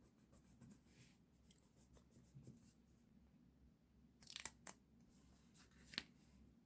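Quiet stationery handling: faint scratches and taps, then a short tearing sound about four seconds in, followed by a click, and another sharp click near the end.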